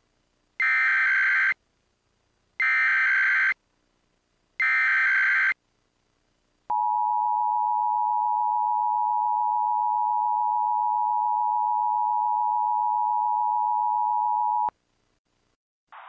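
Emergency Alert System tones: three one-second bursts of SAME header data, the rapid two-pitch digital warble that encodes the alert, about a second apart. Then the EAS two-tone attention signal (853 and 960 Hz together) holds steady for about eight seconds and cuts off abruptly.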